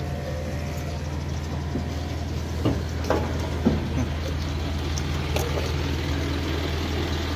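Large truck engine idling steadily, with a few brief sharp sounds about three seconds in.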